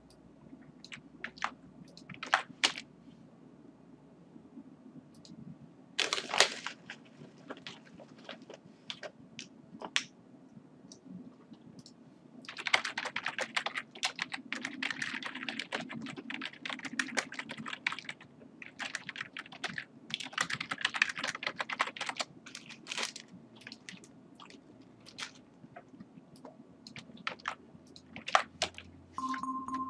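Typing on a computer keyboard: scattered keystrokes, then a run of fast typing in the middle.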